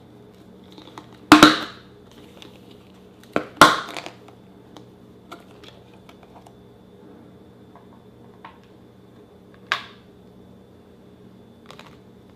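Handling noises during slime making: a few sharp crackling, crinkling sounds. The loudest come about a second in and around three and a half seconds in, a softer one comes near the end, and faint ticks fall in between.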